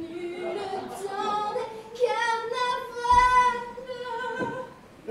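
A woman singing, holding long notes that climb in pitch to a strong high note about three seconds in, then breaking off shortly before the end.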